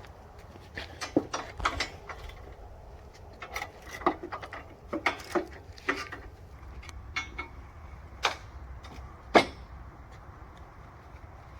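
Irregular knocks, clanks and rattles of sawmill parts and packaging being handled while unpacking, over a low steady rumble, with one sharp loud knock about nine seconds in.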